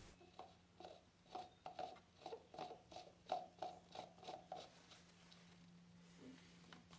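Plastic oil funnel being screwed by hand onto an engine's oil filler neck, its threads making a quick run of faint clicks and scrapes, about four a second, that stops about two-thirds of the way through.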